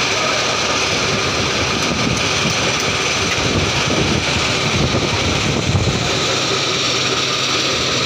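Steady, unbroken noise of an asphalt mixing plant and diesel machinery running, a dense even rumble with faint steady whines above it.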